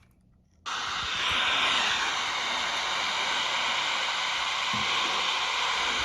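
Steady radio static hiss, starting abruptly about half a second in after a moment of silence.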